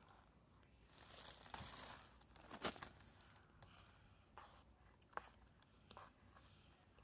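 Faint crinkling and crumpling of a cardboard toothpaste box and tube being handled and squeezed, loudest around two to three seconds in, followed by a few short, sharp clicks.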